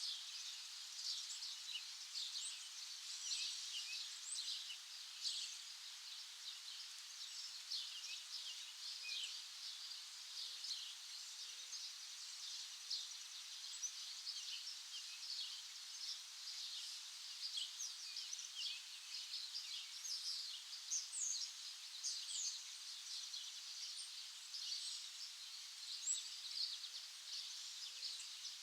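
Many songbirds chirping at once, a steady chorus of short, overlapping high chirps and trills. A few faint low notes sound in a spaced series in the background.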